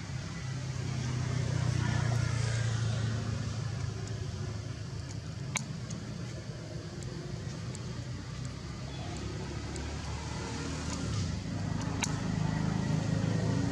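Low engine rumble of a motor vehicle, swelling about two seconds in and again near the end, with two sharp clicks.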